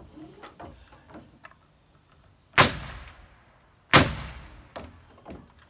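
Pneumatic framing nail gun firing twice, about a second and a half apart, each shot a sharp crack driving a nail into a wooden roof rafter.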